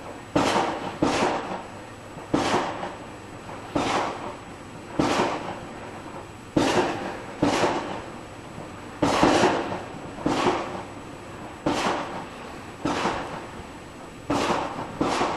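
Neighbourhood fireworks going off, a steady run of sharp bangs about one to two a second at uneven intervals, each trailing off in a short echo.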